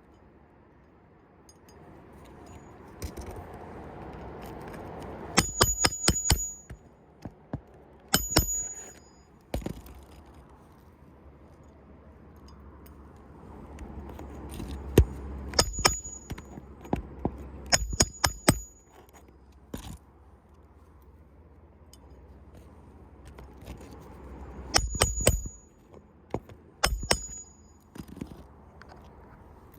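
Metal roofing tool work on asphalt shingles: bursts of quick, ringing metallic strikes, several at a time, about six times, with scraping and rustling of shingles between them.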